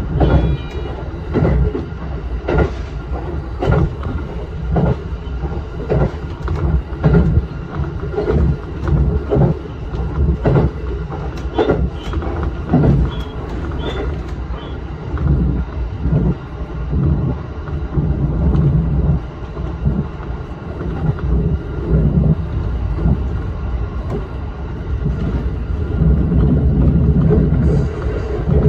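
Shinano Railway SR1-series electric train running along the track, heard from the driver's cab. A steady low running rumble is broken by wheel clacks over the rail joints, roughly once a second.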